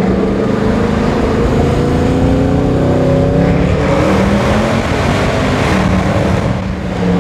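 Mercedes C63 AMG's naturally aspirated 6.2-litre V8, very loud, heard from inside the cabin: it accelerates with a rising pitch for about three seconds, then runs hard inside a road tunnel, easing off briefly near the end.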